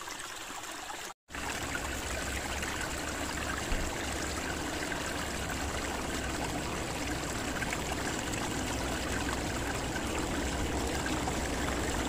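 Small snowmelt stream off the mountain, running and trickling over rocks in a steady rush of water that drops out for a moment about a second in.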